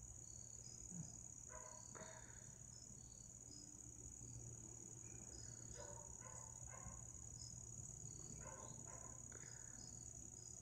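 Night insect chorus, such as crickets: a faint, steady, high-pitched drone.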